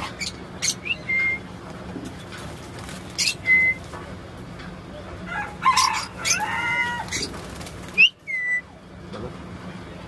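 Alexandrine parakeet calling: about three short whistles that each slide up and then hold a level note, a few quick chirps, and a longer, harsher call with several stacked tones about six to seven seconds in.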